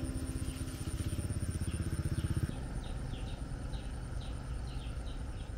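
A small motorbike engine putters with a fast low pulse, growing louder, then breaks off abruptly about two and a half seconds in. After that, birds chirp over and over in short falling chirps above a low steady rumble.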